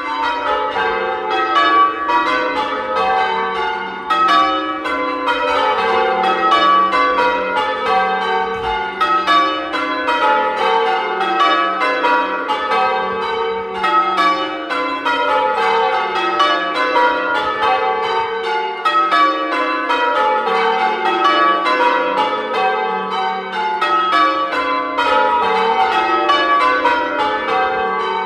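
Change ringing on a ring of eight church bells cast by Taylors in 1871 and 1928, struck one after another in rows that repeatedly step down in pitch from treble to tenor.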